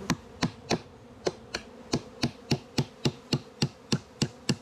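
A hammer striking in a quick, even run of about three blows a second, sealing a bee box, over the steady hum of a swarm of honey bees.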